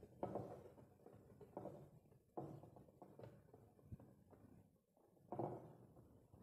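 Faint, scattered soft clicks and rustles of patch-cord leads being handled and plugged into the sockets of an electronics trainer board.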